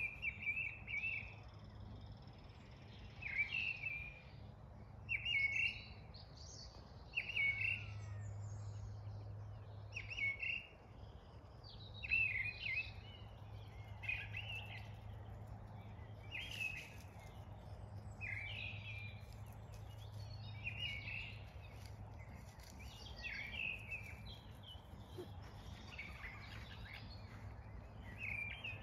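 Wild songbirds singing short, bright, repeated phrases, one every second or two, over a steady low hum.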